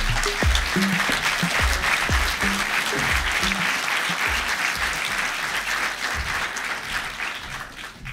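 Audience applauding, with background music of low, repeating bass notes underneath; the clapping dies away near the end.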